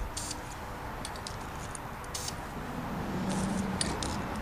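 Aerosol spray-paint can hissing in several short bursts, a quick cluster of them near the end.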